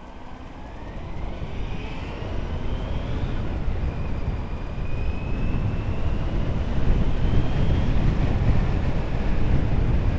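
Honda Hornet 900 motorcycle's inline-four engine accelerating: the pitch climbs, drops briefly about three and a half seconds in at a gear change, then climbs again. Wind noise builds as the bike gathers speed.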